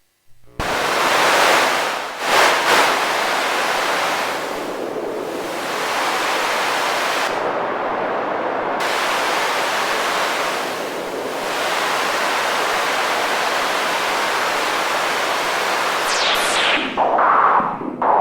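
Old white noise machine hissing, starting suddenly about half a second in, its tone shifting as it runs. The highest part of the hiss drops out for a second or two midway, and near the end the noise turns into falling, swooping sweeps.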